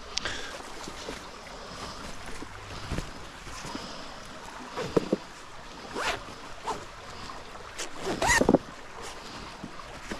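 A cloth bag and gloves being handled: rustling with a few short scraping sounds, the loudest about eight seconds in, over the steady rush of a flowing river.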